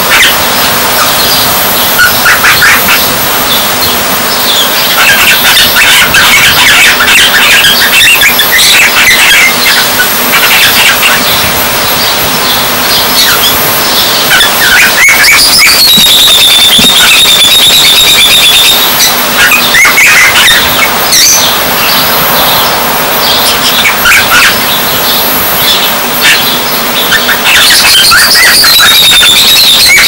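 Immature cockatiel chirping and practising whistles: short scratchy chirps throughout, with a longer wavering whistle about halfway through and another near the end. These are a young bird's first attempts at learning to whistle.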